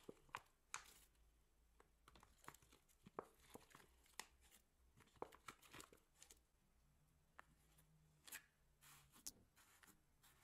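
Slime being stretched, pulled apart and folded by hand: faint, irregular sticky clicks and crackles as it pulls and peels.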